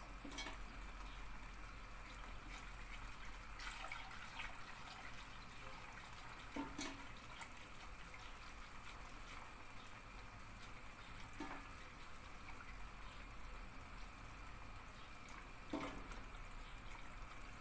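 Sugar syrup ladled from a steel pot and poured over bread rusks, a faint liquid trickle, with a few light clinks of the ladle and whisk against the metal pots.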